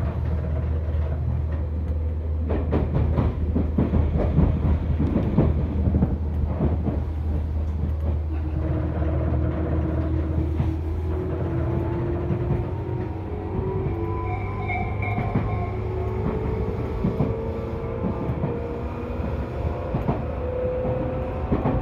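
Tobu 10000-series electric train running, its wheels clattering over rail joints. From about nine seconds in, the DC compound-wound traction motors and gears whine, rising slowly in pitch as the train picks up speed, while a steady low hum drops out.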